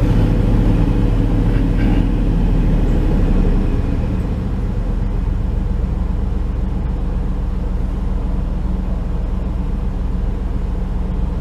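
1996 Chevy Tahoe's V8 idling steadily just after a start, heard from inside the cab. The fast idle eases down slightly about three and a half seconds in. A new EGR valve is fitted, and the engine sounds the way it normally does.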